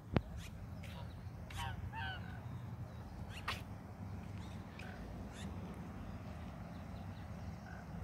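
Domestic geese giving a few short honking calls about one and a half to two seconds in, with scattered softer chirps afterwards. There is a sharp click just after the start and a steady low rumble underneath.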